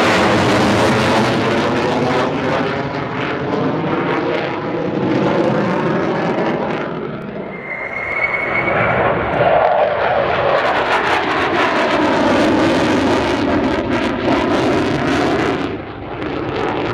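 Sukhoi Su-27's twin turbofan jet engines, a loud continuous roar as the fighter manoeuvres overhead, with a whooshing sweep up and down in the sound as it moves. The roar dips briefly about halfway through and then comes back to full strength.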